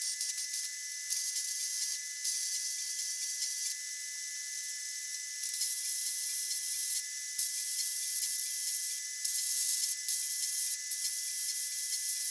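MIG welder arc crackling and hissing in a string of short runs, each a second or two long, with brief breaks between them.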